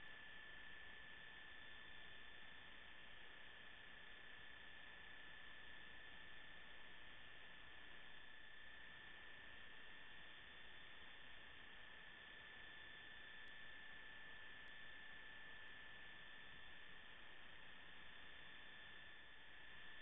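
Near silence: a steady hiss with a faint constant high whine, the electrical noise floor of the recording.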